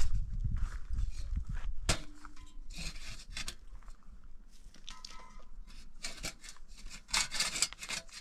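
Scraping, rubbing and clatter of a small portable single-burner gas stove being handled and set in place, with a sharp click about two seconds in and a longer scrape near the end.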